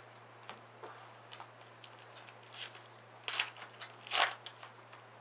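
Foil wrapper of a trading-card pack being torn open and crinkled, with light clicks of cards being handled. The two louder crinkles come about three and four seconds in.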